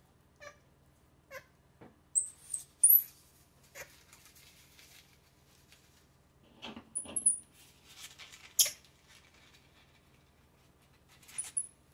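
Baby squirrel monkeys giving short, very high-pitched squeaks in clusters of two or three, three times over, with faint rustling and a sharp click a little after the middle.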